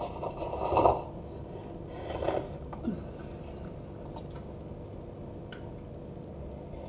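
A person slurping instant noodles off a fork: a longer slurp in the first second and a shorter one about two seconds in.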